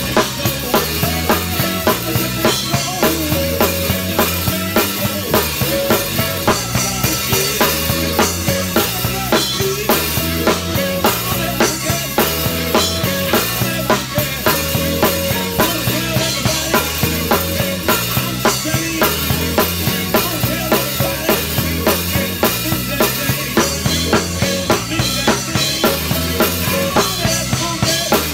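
Live band music led by a drum kit played with sticks: snare, cymbals and bass drum keep a steady driving beat over a moving bass guitar line.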